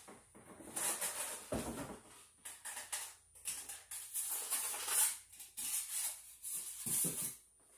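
Cardboard box, foam packing and a plastic toy rifle being handled: irregular rustling, scraping and knocking as the rifle is unpacked and lifted out.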